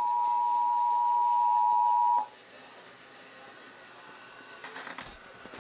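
Emergency Alert System two-tone attention signal, two steady tones sounding together, cutting off about two seconds in. After it, faint background hiss with a few soft clicks near the end.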